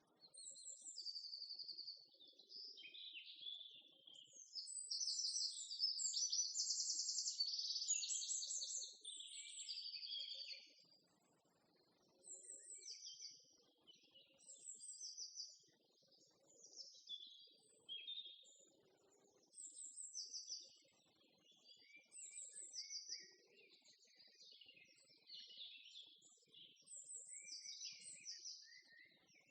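Small songbirds chirping and trilling in short, rapid, high-pitched phrases, one after another. The phrases are densest and loudest in the first ten seconds, then come in separate bursts every second or two.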